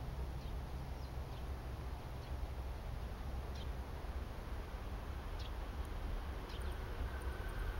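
Small birds giving short, falling chirps now and then over a low steady rumble; near the end a distant E6 series Shinkansen begins to be heard approaching as a faint rising hum.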